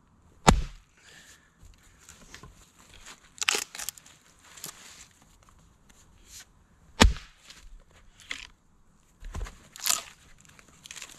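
Axe splitting firewood on a chopping block: two hard blows, about half a second in and about seven seconds in, then a lighter knock a couple of seconds later. Between the blows there is the crackle and rustle of split wood and dry leaves being handled.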